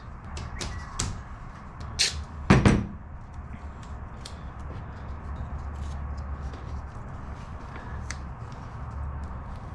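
Small metal tools and aluminium rivets being handled on a workbench and set into a wing spar: a few sharp clicks and taps, with a louder knock about two and a half seconds in, then fainter scattered clicks over a steady low hum.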